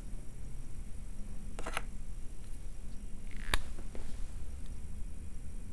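A few sharp clicks over a low steady hum: a quick double click about one and a half seconds in, then a sharper single click about three and a half seconds in and a fainter one just after.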